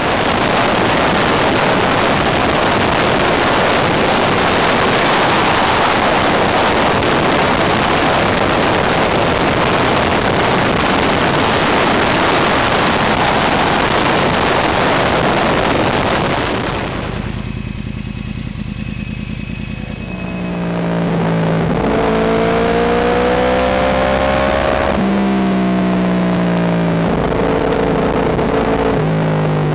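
Wind rushing over the microphone on a Yamaha R1 sport bike at speed. About two-thirds of the way through, the noise eases and the inline-four engine is heard accelerating: its pitch rises, drops at a gear change, and rises again.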